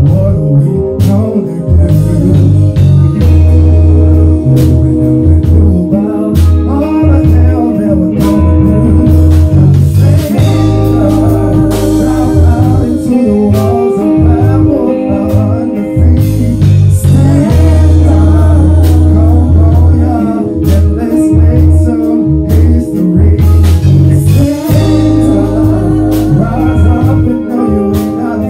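Vocalists singing into microphones over a recorded backing track with a heavy bass line, a soul/gospel-style song.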